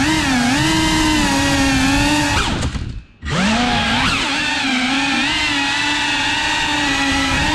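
FPV quadcopter's motors and propellers whining, the pitch wavering up and down with the throttle. About two and a half seconds in, the motors slow and the sound nearly cuts out, then it spins back up within about half a second.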